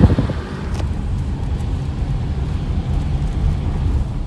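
Low, steady rumble of a car's engine and tyres heard from inside the cabin while driving slowly, with one brief click under a second in.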